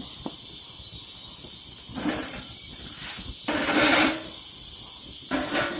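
Steady high-pitched chorus of night insects such as crickets, with two brief hissing swells about two seconds and four seconds in.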